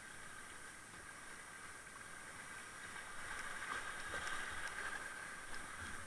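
Rushing water of small river rapids around a kayak, swelling about halfway through as the boat runs into white water, with a few faint clicks.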